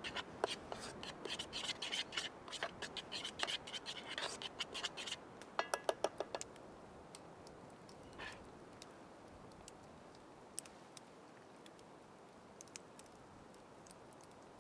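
A metal utensil whisking pancake batter in a wooden bowl, with quick scraping and clicking strokes against the bowl that end in a short fast run of strokes about six seconds in. After that only a few light taps are heard.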